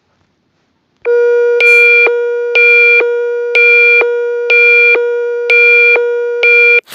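Electronic alert tone: a steady low tone with a higher tone pulsing on and off about once a second, six times. It starts about a second in and cuts off abruptly just before the end, followed by a brief click.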